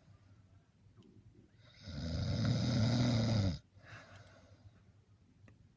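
A man snoring: one loud, low, droning snore starting about two seconds in and lasting under two seconds, with quiet pauses before and after it.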